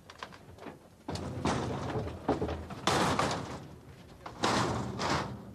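Heavy wooden casks and equipment being dragged and shoved onto a lorry: several rough scrapes and knocks against a metal ramp and deck.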